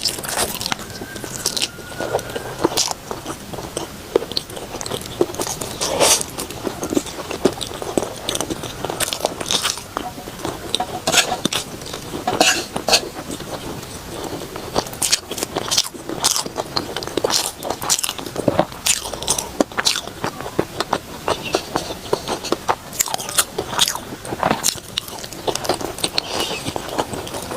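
Close-up eating sounds: a person biting and chewing food, with many irregular sharp mouth clicks and smacks.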